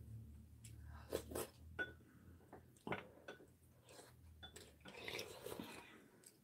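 Faint eating sounds: a few light clicks of metal spoons and chopsticks against ceramic soup bowls, with quiet chewing and mouth noises between them.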